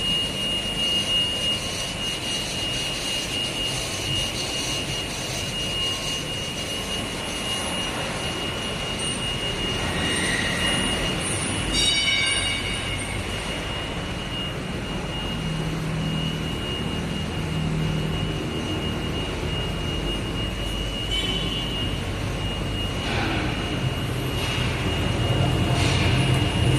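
Rubber co-extrusion and microwave curing production line running: a steady mechanical noise with a constant high whine. A short clatter of clicks comes about twelve seconds in, and a low hum grows louder near the end.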